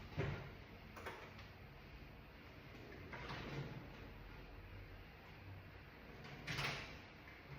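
Faint scattered knocks and rattles of tools being handled while someone searches for a Torx driver, with the loudest clatter about six and a half seconds in, over a low steady hum.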